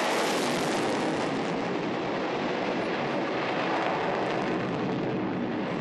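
F-16 fighter jet's engine noise as it flies its display overhead: a steady rushing roar that swells slightly about a second in, then eases a little.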